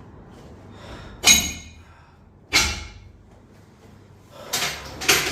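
Sharp thuds of chiropractic adjustment thrusts on a patient's body: one about a second in, another about a second and a half later, then two more close together near the end.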